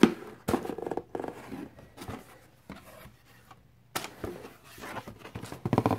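Cardboard box being opened and handled, with the lid and flaps moved and paper and tissue wrapping inside rustling in several short bursts. The loudest bump comes right at the start.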